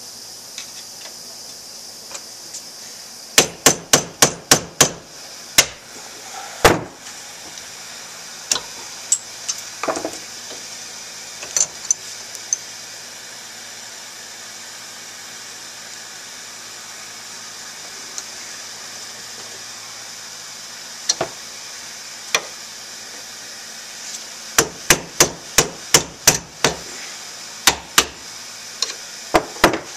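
Hammer blows on a punch set in the bore of a Kawasaki KX250 Unitrack linkage rocker, driving at rusted needle bearings. A quick run of about seven sharp blows comes a few seconds in, then scattered single strikes, then a longer quick run of about a dozen near the end.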